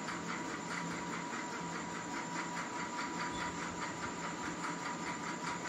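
Steady background hiss with a low hum and a faint constant high tone, pulsing quickly and evenly throughout.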